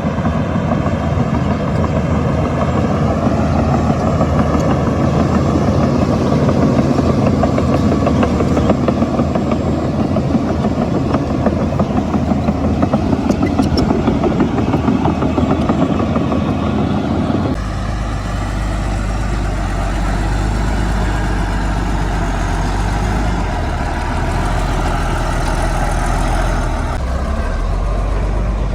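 A Shantui crawler bulldozer's diesel engine running under load, with a dense clattering rattle over the engine. About two-thirds of the way through the sound switches abruptly to a steadier, deeper engine drone.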